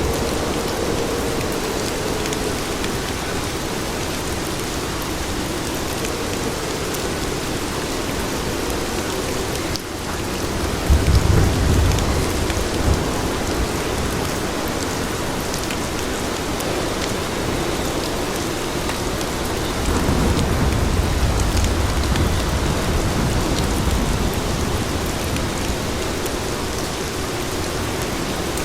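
Steady rain falling, with a deep low rumble about a third of the way through and a longer, softer one about two-thirds through.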